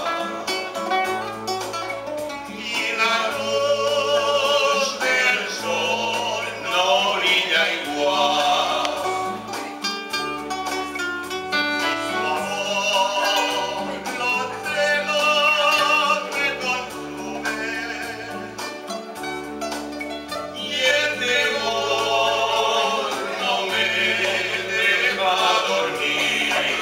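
Male vocal group of four singing together in long held phrases, accompanied by acoustic guitar and keyboard.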